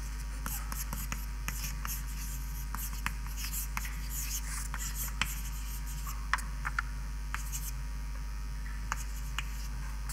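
Handwriting: a series of short, scratchy strokes and small taps at irregular intervals, over a steady low hum.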